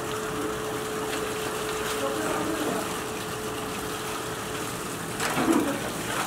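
Water sloshing and splashing in rinse tubs as a bundle of metal plates strung on a wire is dunked and lifted out, with a tap running into a basin; the loudest splash comes about five and a half seconds in.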